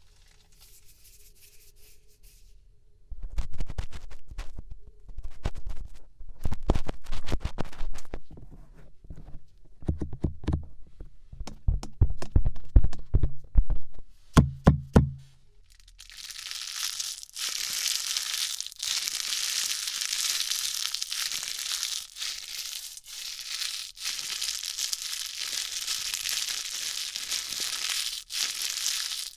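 ASMR ear-cleaning sounds made close against the ears of a 3Dio binaural dummy-head microphone. The first part is a run of irregular knocks and thumps on the ear. From about halfway through comes a continuous scratchy rustling right at the ear canal.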